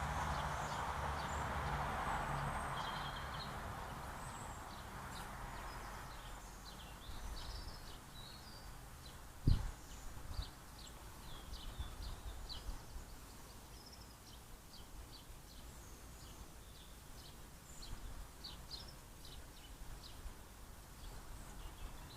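Small birds calling outdoors with many short, high chirps scattered through. Under them is a background rush that fades away over the first few seconds. A single sharp knock comes about nine seconds in and is the loudest sound.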